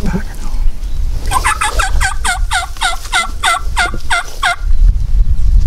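Wild turkey yelping: a run of about fourteen quick notes, about four a second, each falling in pitch, lasting some three seconds. A low rumble of wind on the microphone runs under it.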